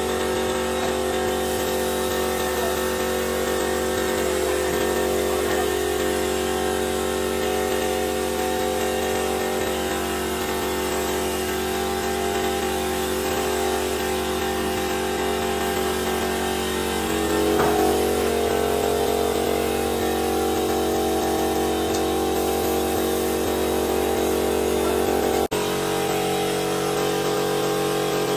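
Air compressor running steadily, feeding a spray gun that sprays finish onto wooden woodwork, with a constant hum and hiss.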